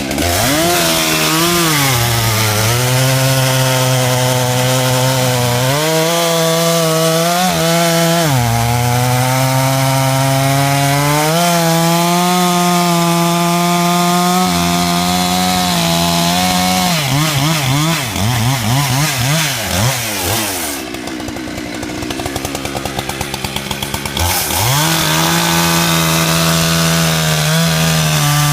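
Gasoline chainsaw cutting through a log, its engine pitch sagging as the chain bites and picking up again between passes. Around two-thirds of the way in it eases off toward idle and the level drops, then revs back up near the end.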